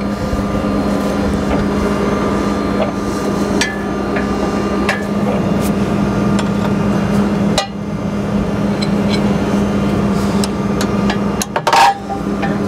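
A few sharp metallic knocks and clinks of a knife-changing key working on a Kuhn disc mower's cutter bar while a blade is swapped, the loudest near the end. Under them, a tractor engine idles steadily.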